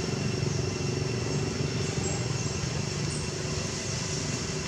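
Steady low engine-like hum under an even hiss, unchanging throughout.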